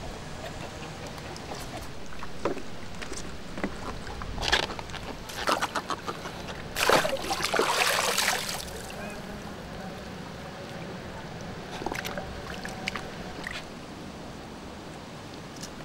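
Water splashing and sloshing in several short bursts at a floating net fish cage being handled in shallow water, the loudest and longest splash about halfway through.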